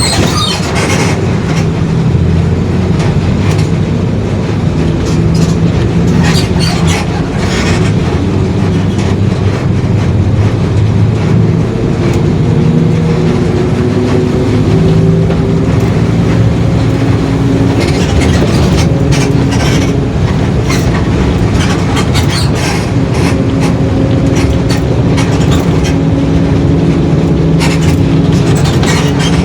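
Mercedes-Benz OF-1721 city bus under way: its diesel engine runs steadily while a growling whine from the worn differential rises and falls with road speed, and the body rattles with many short clatters.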